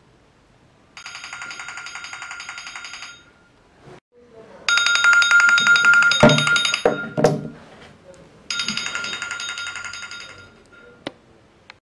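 A smartphone's electronic ring tone, a fast trilling chime, sounds in three bursts of about two seconds each. The middle burst is the loudest, and a couple of knocks come as the phone is grabbed from the bedside table.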